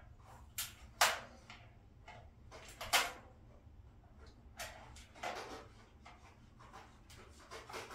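Irregular small clicks, knocks and scrapes as a handle and its screws are worked into a powder-coated steel cabinet door frame, the two sharpest knocks about one and three seconds in.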